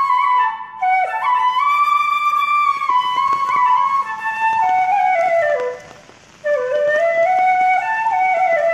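Background music: a solo flute playing a slow melody of held notes that slide into one another and drift downward, with short breath pauses about half a second in and around six seconds in.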